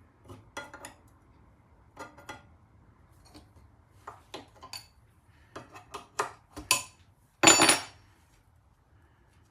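Small metal clicks and clinks of a Whitworth spanner working the nut on the water tube of a British Seagull outboard held in a vise, with a louder metallic clatter about three-quarters of the way through.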